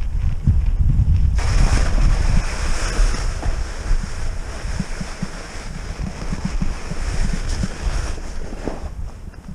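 Wind buffeting the camera microphone of a mountain bike on the move, a gusty low rumble throughout. A steady hiss of tyres rolling over the trail sets in about a second and a half in and stops near the end.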